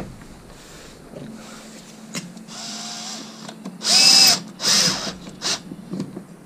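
Bosch cordless screwdriver driving a screw through a bracket into a wooden panel, its motor whining in four short bursts, the loudest about four seconds in.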